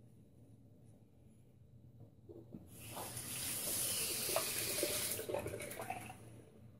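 Tap water running into a sink for about four seconds, starting a couple of seconds in and fading out near the end, as a Gillette Techmatic safety razor is rinsed under it, with a few small knocks.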